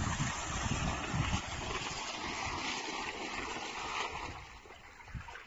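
Pumped water gushing out of a pipe outlet into an irrigation furrow, a steady rushing and splashing with wind rumbling on the microphone underneath. It grows fainter near the end.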